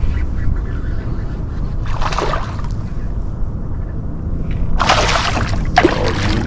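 Water sloshing and splashing around a fishing kayak in three short bursts, over a steady low rumble.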